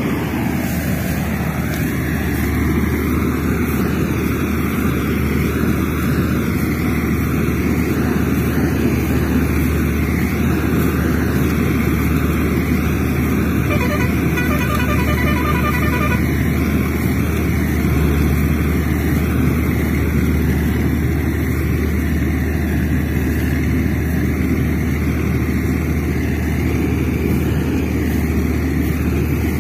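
Steady engine-like drone over a low hum. About halfway through, a brief, rapidly pulsing horn-like tone sounds.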